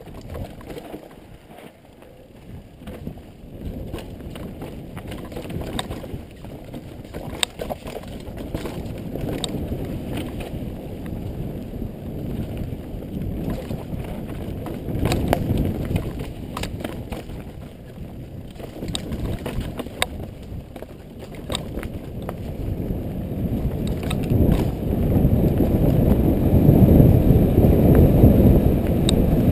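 Specialized Demo 8.1 downhill mountain bike riding down a dirt forest trail: a steady low rumble of knobby tyres and wind on the helmet microphone, broken by frequent clicks and rattles from the chain and frame over roots and rocks. The rumble grows louder over the last few seconds.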